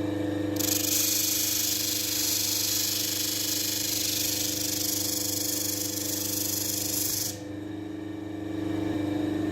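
An electric power tool's motor running with a steady hum, and a loud hissing from about half a second in that drops away about seven seconds in, typical of a metal part being worked against a spinning wheel or belt.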